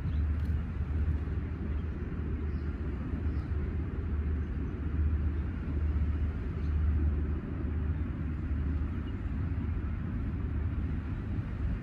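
Wind rumbling on the microphone in the open air by the sea: a steady low rumble that swells and eases every second or two.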